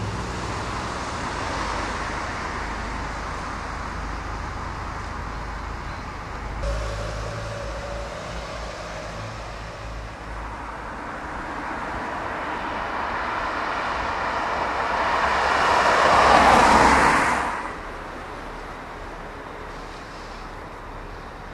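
Motor vehicle engine and traffic noise: a steady low rumble, with a rushing sound that builds to its loudest about sixteen seconds in and then falls away sharply.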